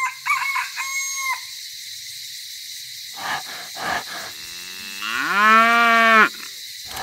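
A cow mooing: one long moo that rises in pitch and then holds steady for about a second before stopping, near the end. A few short high chirps sound in the first second and a half.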